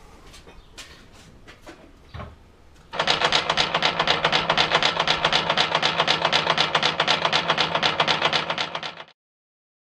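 Homemade two-roller coal crusher running, its toothed steel rollers driven by a three-phase electric motor: a loud, fast, even metallic clatter. It starts suddenly about three seconds in and cuts off abruptly near the end, with only faint clicks before it.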